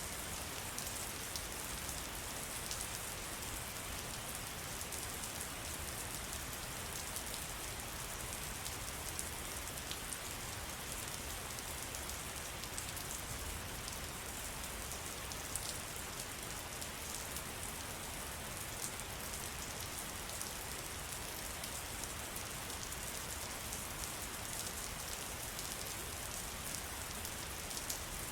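Steady rain falling in a forest, an even hiss with many small drop ticks.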